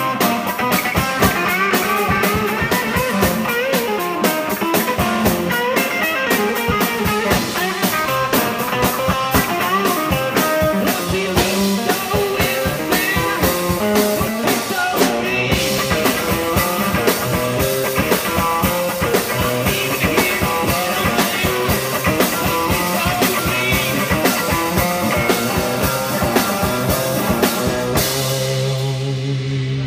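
Live rock band playing: guitar over a steadily driving drum kit. About two seconds before the end the drums stop and a final guitar chord is left ringing.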